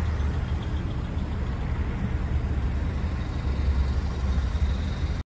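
Steady low rumble of road traffic noise, cutting off abruptly near the end.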